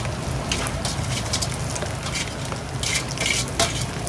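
Stainless steel slotted spoon scraping and clinking against a metal colander as wet greens are scooped out, several short scrapes over a steady low hum.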